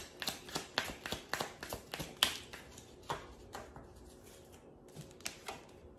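A deck of oracle message cards being shuffled by hand: a quick run of clicks and taps as the cards knock together, thinning out after about three and a half seconds, with a couple more clicks near the end.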